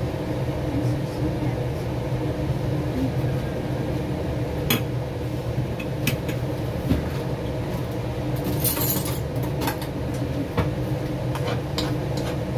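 Steady machine hum from running kitchen appliances, with scattered clinks and taps of a utensil against a nonstick wok and plate, a quick cluster of them about nine seconds in.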